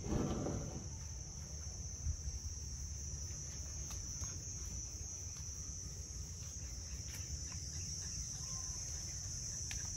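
Steady high-pitched insect chorus over a low background rumble, with a few faint clicks.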